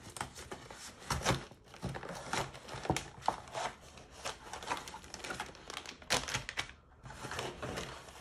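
Cardboard mailer and plastic packaging being handled and opened, with irregular crinkling and rustling and a few sharper crackles. A clear plastic bag of clay bead strands is drawn out of the box. There is a short lull near the end.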